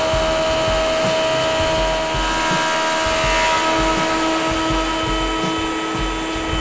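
Thickness planer running as a laminated wooden hull frame is fed through it, with its dust extractor drawing on it: a steady machine whine made of several tones, over low knocks.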